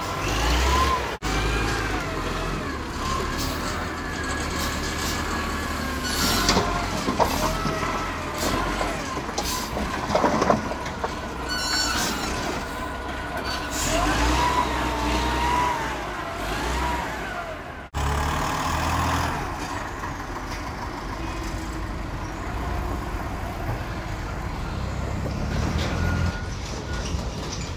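ChengGong ZL30B-II wheel loader's diesel engine running and revving up and down as it raises and tips a bucket of dirt into a truck, with some clattering. After a cut about 18 seconds in, a loaded truck's engine running steadily as it climbs a steep dirt road.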